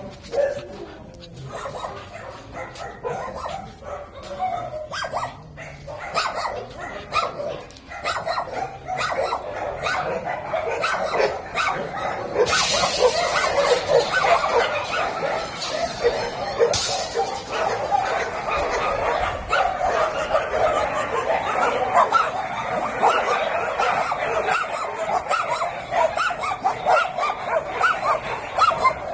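Many dogs barking and yipping at once, an overlapping din that builds up about eight seconds in. A hiss runs under it from about twelve to seventeen seconds in.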